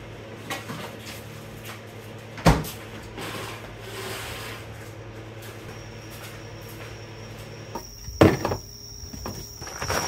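Knocks and clatter of things being handled while packing up, over a steady low hum: a sharp click a few seconds in and a louder knock after about eight seconds, with a thin high steady tone joining about six seconds in.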